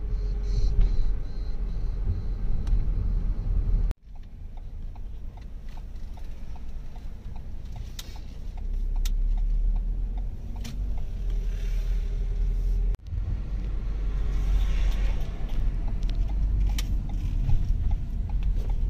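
Low engine and road rumble inside the cabin of a moving car, with a few light clicks.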